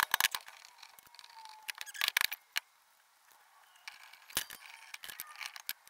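Sharp metallic knocks and clinks in a few short clusters: a hammer striking a hand impact driver set in a stuck screw of a cast iron clock case, working the screw loose.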